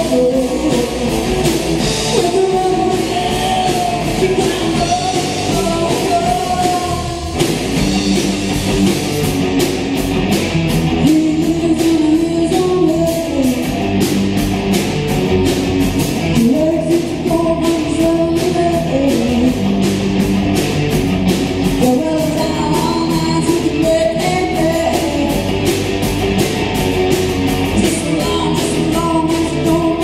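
Band playing a rock song live, with a lead vocal and guitar over a steady beat.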